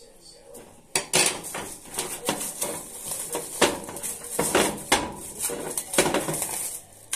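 A clear plastic bag crinkling as it is handled, with metal clinks and knocks against a stainless steel mixing bowl. It starts about a second in after a quiet moment.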